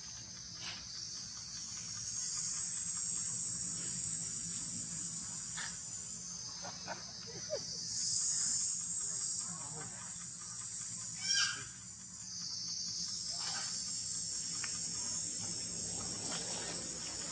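Insect chorus buzzing in a steady high band that swells and fades. It is overlaid by a few faint short chirps and squeaks, the clearest a brief squeak about eleven seconds in.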